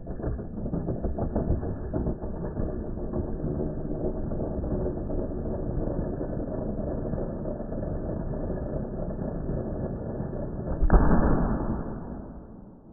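Red plastic toy car rolling across a wooden floor: a steady, muffled rumble of its wheels on the boards. About eleven seconds in, a sudden louder thump that fades over a second or so.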